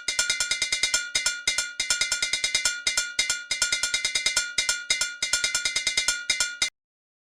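A metal bell-type hand percussion instrument, such as a cowbell, struck in a fast, repeating rhythmic pattern; each strike rings with bright, high overtones. It stops abruptly near the end.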